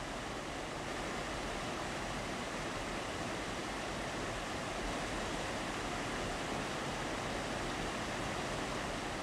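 Steady rushing of creek water tumbling over rocks and small falls.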